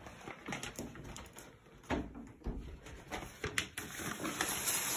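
Footsteps and phone handling noise in a small tiled bathroom: scattered clicks and knocks, a low thump about two seconds in, and a hiss that grows near the end.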